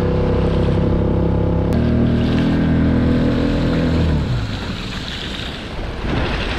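Small skiff's outboard motor running steadily under way, with water rushing past the hull. About four seconds in the engine is throttled back and its note slides down and drops away, leaving the wash of water and wind.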